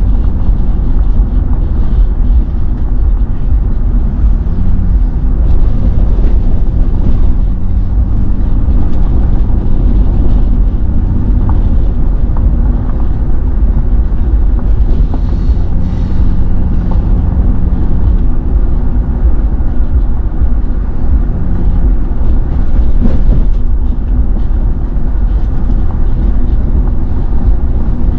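Car driving at steady speed: a loud, constant low rumble of road and engine noise, with a faint engine hum that comes and goes.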